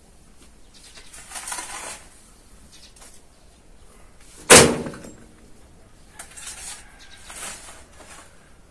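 A few short scraping sounds and one sharp knock about four and a half seconds in that rings briefly, the loudest sound.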